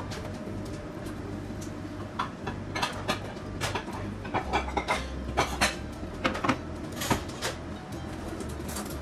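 Kitchen clatter: a run of light knocks and clinks from kitchenware being handled, busiest in the middle, over a low steady hum.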